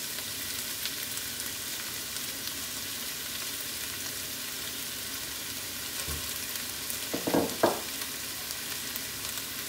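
Chicken, onion and garlic sizzling steadily in oil in a non-stick frying pan as sauce is poured in. A couple of brief knocks about seven seconds in.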